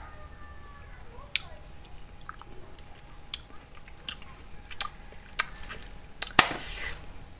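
Wet chewing and mouth smacks of someone eating ripe mango flesh, with scattered moist clicks and one louder, longer wet slurp near the end.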